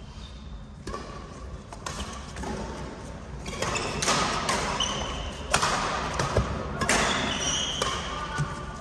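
A badminton doubles rally: about five sharp racket hits on the shuttlecock, a second or more apart, with brief high sneaker squeaks and footfalls on the court floor.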